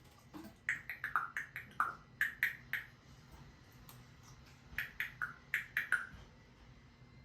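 African grey parrot imitating the sounds of phone texting: two runs of quick, short blips, many dropping slightly in pitch, at about four a second, starting about a second in and again around five seconds in.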